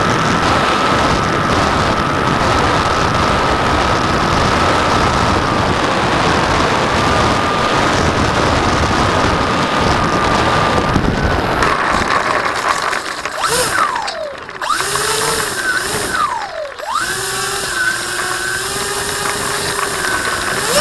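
Two small electric motors on a model Twin Otter airplane give a steady high whine under loud rushing air in flight. About halfway through the rush of air drops away, and the motor whines fall and rise in pitch several times as the throttle is worked for a low pass and touch-and-go, before settling to a steadier whine.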